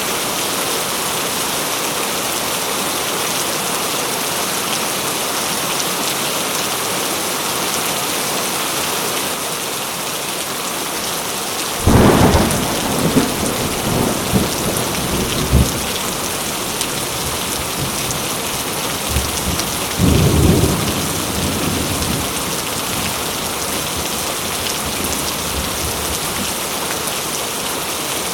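Heavy rain falling steadily, with a sudden crack and rumble of thunder about twelve seconds in lasting several seconds, and a second, shorter rumble about eight seconds later.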